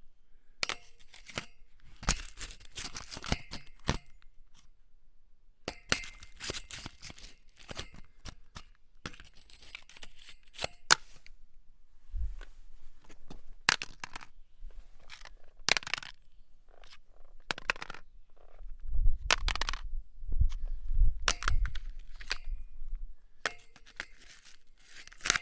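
An object grating and scraping against metal in a series of irregular strokes. Some strokes are short, some run a second or two, and a faint metallic ring sounds under several of them.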